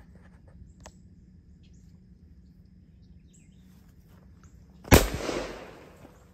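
A single shotgun shot about five seconds in, sharp and loud, its echo trailing away over about a second.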